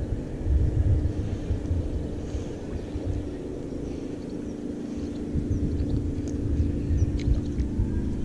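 A distant engine droning steadily under a gusty low rumble.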